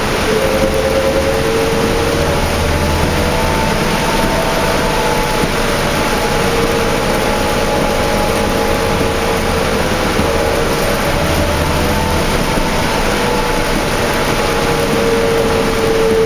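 Cabin sound of a New Flyer D40LF transit bus on the move, with its Cummins ISL diesel engine and ZF automatic transmission. Steady tones from the driveline drift gently up and down in pitch over a dense hiss of heavy rain and road spray. A low engine hum drops away about twelve seconds in.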